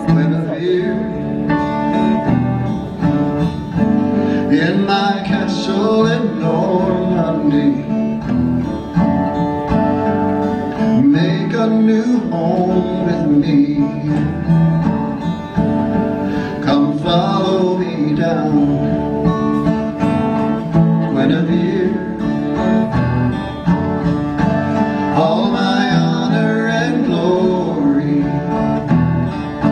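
Two acoustic guitars playing a folk song live, with a man's voice singing the melody at several points.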